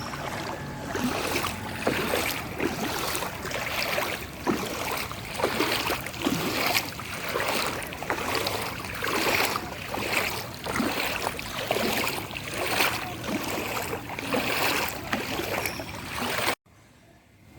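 Floodwater on a waterlogged street sloshing and splashing in repeated surges, about one a second. It cuts off suddenly near the end.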